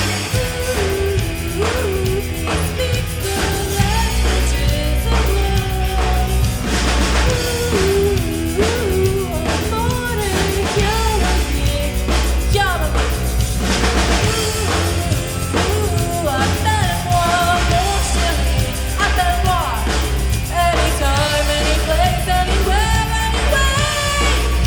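Live rock band playing, with a voice singing over drum kit and bass.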